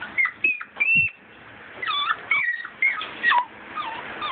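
Miniature schnauzers whining and yipping during rough play, a rapid string of short, high-pitched cries that rise and fall in pitch.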